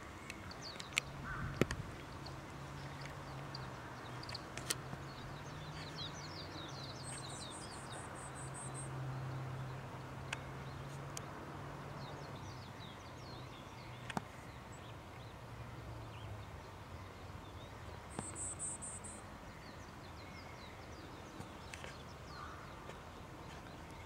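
Faint outdoor ambience of small birds chirping and twittering in the distance. Under it runs a low steady drone that fades out about two-thirds of the way through, with a few soft clicks.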